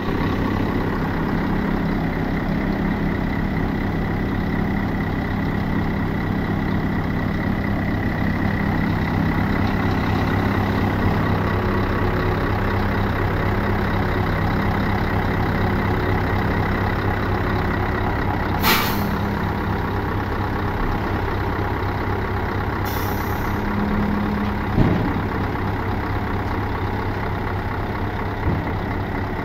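Scania 164 G tipper truck's V8 diesel engine running steadily while the dump body is raised hydraulically. Two short, sharp hisses of released air come about halfway through, a few seconds apart, and a single knock follows shortly after.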